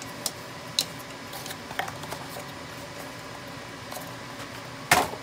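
Light clicks and taps of a CPU being handled and set into the server's processor socket, with one sharper, louder click near the end.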